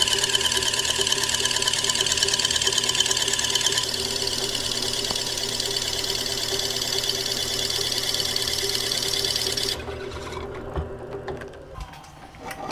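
Drill press running with a cutter pointing the end of a wooden wheel spoke, a steady mechanical run whose tone shifts about four seconds in and which cuts off just before ten seconds. A few light knocks follow, wooden spokes being handled.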